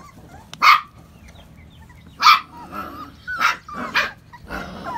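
A doodle puppy yapping in short, high-pitched barks, four of them at uneven gaps.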